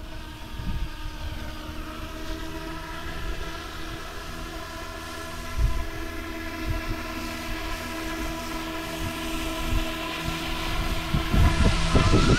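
Whine of the Yuxiang F11 RC Apache helicopter's electric motors and spinning rotors, a steady set of tones, with gusts of wind buffeting the microphone. It grows louder near the end as the helicopter comes close.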